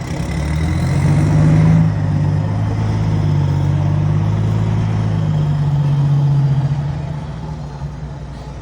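Heavy diesel truck engine running under load with a deep exhaust rumble as it goes past, swelling over the first couple of seconds, holding steady, then fading away near the end.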